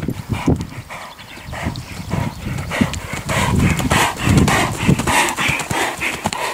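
Hoofbeats of a dressage horse trotting on a soft rubber-chip arena surface: a steady, rhythmic run of muffled thuds.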